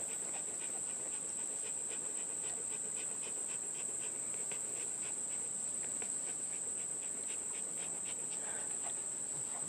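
Steady high-pitched insect chorus, with a dog panting quickly close by, about three breaths a second.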